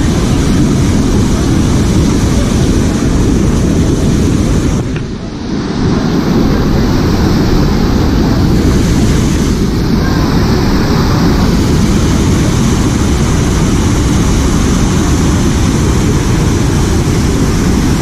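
Steady rushing of churning white water in the channel of a river rapids raft ride, with wind buffeting the microphone. The level dips briefly about five seconds in.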